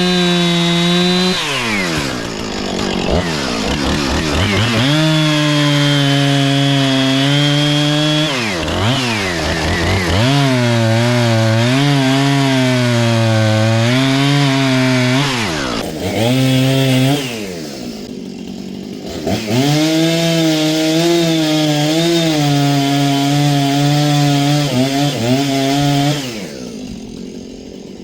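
Two-stroke gas chainsaw cutting wood, revved to full throttle in several long stretches with the pitch dipping and wavering under load in the cut, dropping back to idle between cuts and again near the end.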